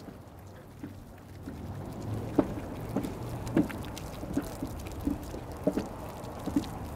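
Liquid sloshing and splashing, with a few sharp knocks.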